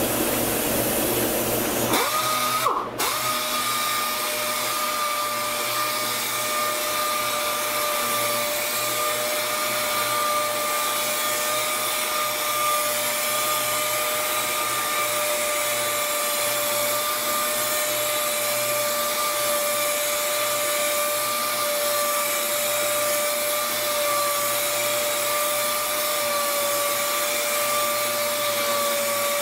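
Air-powered random orbital sander running steadily with a high whine over a hiss of air, sanding a fiberglass truck cap with a 600-grit disc to prepare it for paint.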